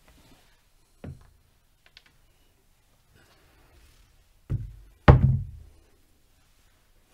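Knocks on a craps table as chips are set down on the layout: a light knock about a second in, then two louder thumps close together near the five-second mark.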